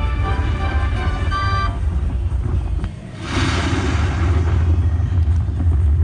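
Slot machine sound effects: chiming win-tally music for about the first two seconds. After a brief dip about three seconds in, a loud rumbling, hissing thunder effect plays with the machine's lightning feature.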